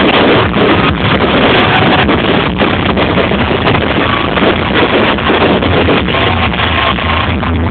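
Many fireworks bursting and crackling in quick succession over a constant loud rumble.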